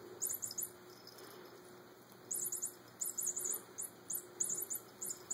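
Toy mouse on a string giving high-pitched electronic squeaks as a kitten bats it, in quick clusters of three to six chirps several times over.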